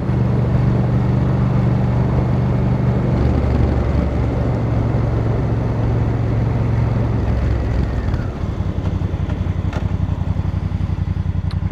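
Honda Africa Twin CRF1000L's parallel-twin engine running on the ride. The engine note shifts lower about three seconds in. From about eight seconds in it settles into a slower, evenly pulsing beat.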